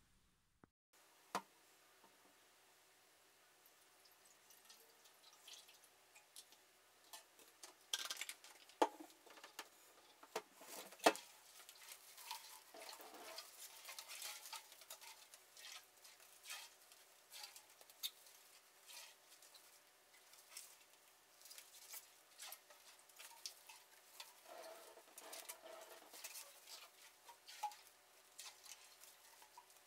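Rust-removing acid sloshing faintly inside a metal fuel tank as it is tilted and turned by hand, with crinkling of the plastic wrap over the tank and scattered light knocks.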